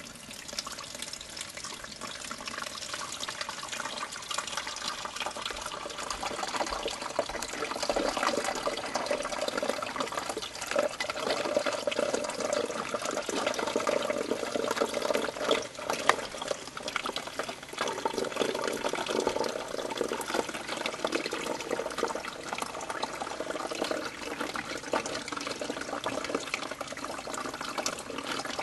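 Water pouring steadily from a glass coffee carafe into the water reservoir of a drip coffee maker, growing a little louder after several seconds.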